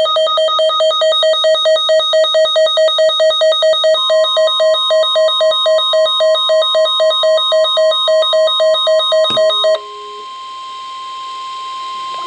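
Electronic alarm beeping rapidly, about four beeps a second, joined about four seconds in by the long steady NOAA Weather Radio warning alarm tone, the signal that a weather warning message follows. Near the end a click and a short lower beep come, and the beeping stops, leaving the single steady warning tone over a rising hiss.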